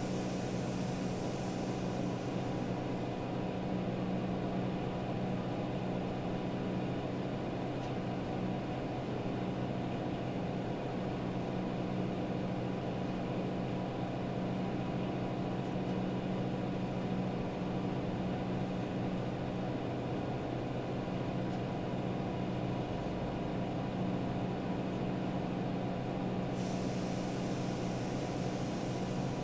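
Steady room hum with a few low held tones and a faint hiss, unchanging throughout: the background tone of the room.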